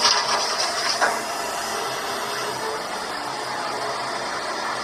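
Heavy machinery noise from a Caterpillar mining excavator loading a haul truck: a steady, even rumble and clatter. A sharper knock comes at the start and another about a second in.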